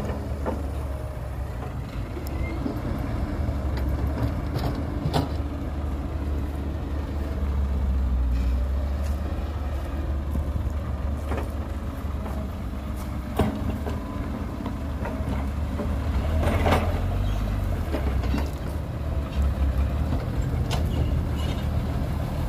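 Heavy diesel construction machinery running steadily, with a deep engine rumble and a few sharp knocks now and then.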